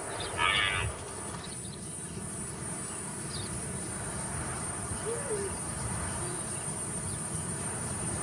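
Night ambience of insects trilling steadily at a high pitch over a low rumble, with one brief, louder high sound about half a second in.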